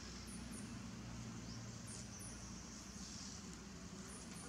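Faint outdoor ambience: a steady low hum and hiss, with short high chirps in pairs about every two seconds.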